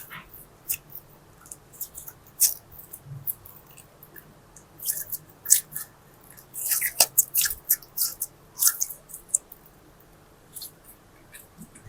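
Slime being mixed, making irregular sticky clicks and crackling pops, thickest in the middle and thinning out near the end.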